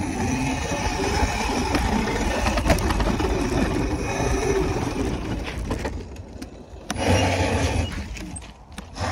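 Wind buffeting the microphone and the rumble and rattle of a bike riding fast over a dirt track. The noise dips briefly about six seconds in.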